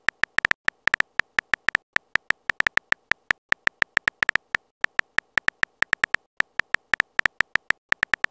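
Simulated phone-keyboard typing clicks from a texting-story app, one short tick per letter as a message is typed. The ticks come in a quick, uneven run, several a second.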